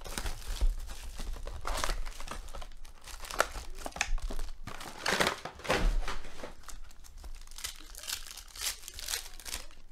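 Foil trading-card packs and their hobby box being opened by hand: irregular crinkling and tearing of the wrappers.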